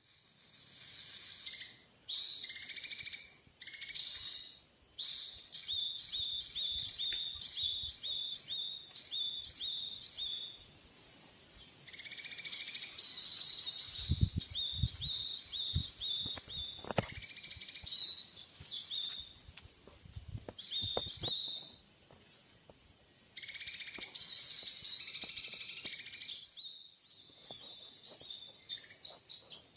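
Bird chirping: rapid trains of high, even chirps that come in repeated bursts, with a few low thumps near the middle.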